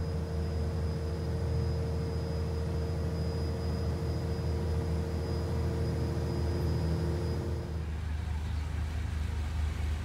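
Boat engine running steadily: a low drone with a thin steady whine above it. The whine drops out about eight seconds in while the drone carries on.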